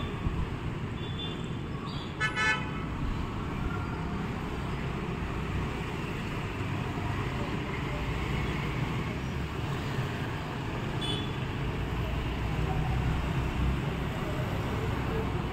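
Steady street traffic noise with a low rumble, and a short vehicle horn toot about two seconds in.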